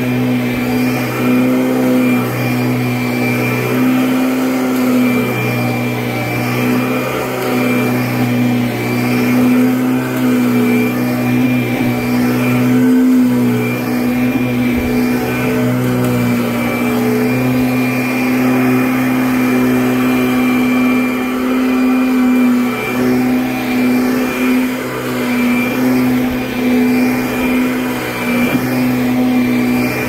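Kirby Avalir upright vacuum running on carpet: a steady motor hum with a thin high whine on top, its level swelling and dipping slightly as the head is pushed back and forth.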